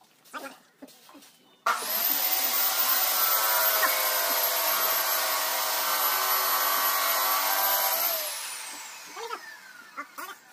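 A power tool's electric motor running at high speed with a high whine, switched off about eight seconds in and spinning down, its whine falling steadily.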